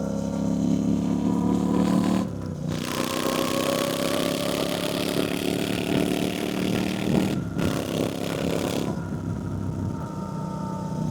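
2024 Triumph Bonneville T120's 1200 cc parallel-twin engine pulling hard, its note rising, with short breaks about two and seven and a half seconds in that fit gear changes. Wind rushes over the microphone through the middle, then eases near the end as the engine note steadies.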